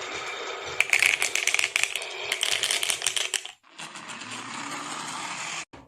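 Marbles rolling and clattering down a wooden marble run, a fast run of sharp clicks and rattles. It cuts off abruptly about three and a half seconds in, then a softer, steadier rolling with light clicks follows.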